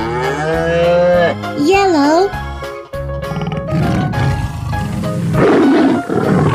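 Children's background music with cartoon sound effects: a rising pitched call in the first second, a warbling tone about two seconds in, then a rough animal roar from about four seconds in.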